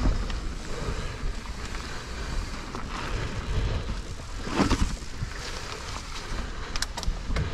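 Mountain bike riding over a dirt forest trail: tyres rolling and the bike rattling over the rough ground, with wind buffeting the microphone. A louder knock comes about halfway through, and a few sharp clicks near the end.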